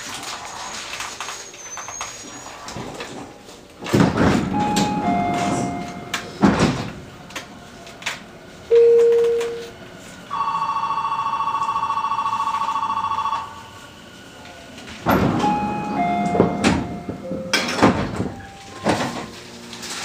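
Inside a commuter train car at a station stop: sliding-door mechanism noise twice, each time with a short falling two-note door chime. Between them come a brief beep and a steady pulsed warning buzzer lasting about three seconds.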